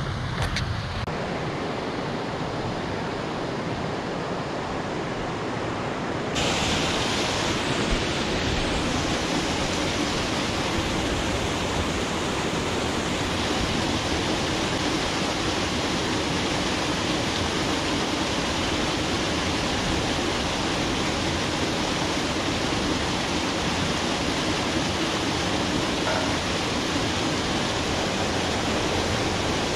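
Water pouring from a drainage culvert outlet over a low concrete drop into a ditch, a steady rushing splash. It gets louder and brighter about six seconds in.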